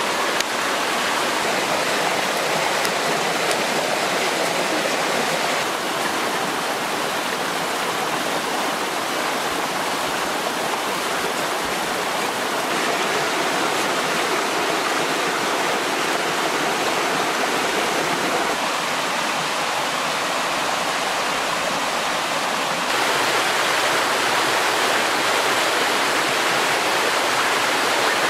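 Fast stream water rushing over rocks and small cascades, a steady, loud rush whose tone changes abruptly a few times.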